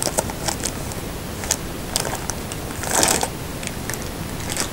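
Clear plastic wrapping around a pair of headphones crinkling and rustling as it is handled inside a carrying case. It comes in short, scattered bursts, the loudest about three seconds in, over a steady hiss.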